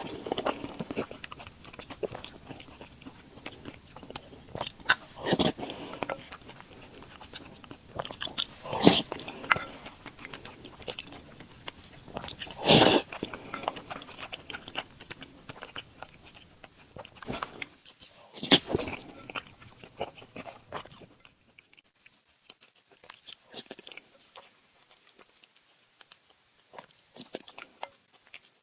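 Close-miked eating of soft glutinous rice balls in sweet soup: wet chewing and mouth sounds, with louder bursts every four or five seconds, growing quieter and sparser about two-thirds of the way through.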